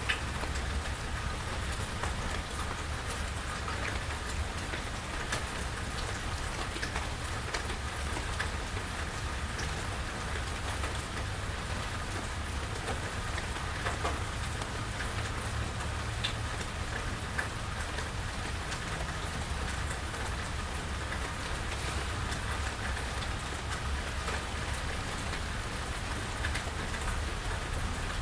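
Steady rain falling, with many individual drops ticking close by and a low steady rumble underneath.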